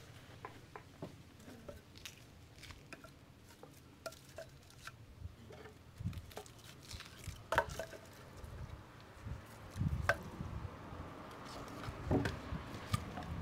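Scattered light taps and clicks of food preparation: a knife cutting on a wooden board and dishes being handled. A few dull thumps come in the second half, the last around when firewood logs are picked up.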